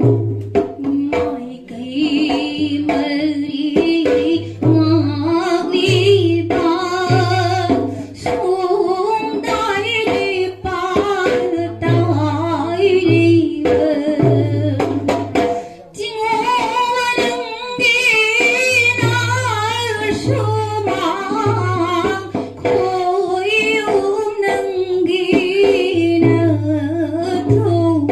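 A woman singing a dance song, accompanied by a dholak drum beating a steady rhythm underneath.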